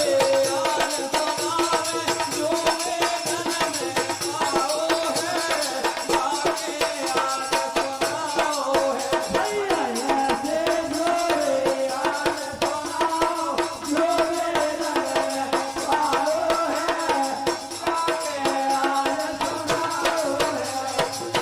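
Bundeli folk bhajan music: a melody line carried over a steady hand-drum beat and busy, fast percussion.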